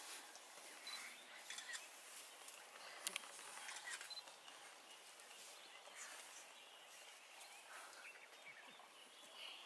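Near silence: faint outdoor bush ambience with scattered soft clicks and rustles, one sharper click about three seconds in.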